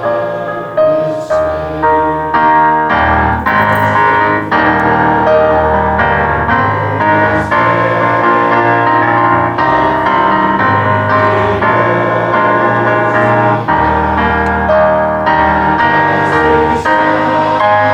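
Instrumental keyboard music playing slow, held chords over a sustained bass line that changes note every second or two.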